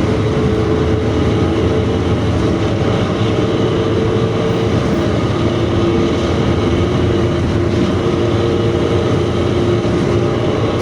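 Rear-engined intercity bus running at speed, its exhaust giving a steady, deep 'snoring' growl (ngorok) with a held engine tone over road noise.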